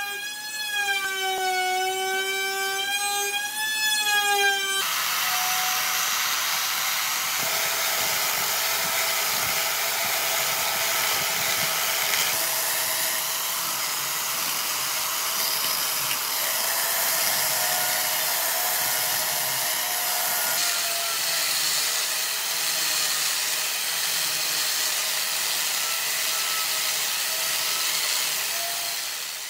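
Electric power tool running with a whine that wavers in pitch. About five seconds in, it settles into a steady hissing cut through wood, with the motor tone held under it, and it fades out at the end.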